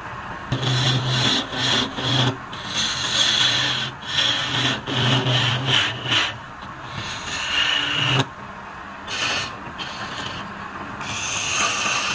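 Wood being worked on a turning lathe, a tool rubbing and scraping against the spinning workpiece in repeated passes of one to two seconds with short breaks between them.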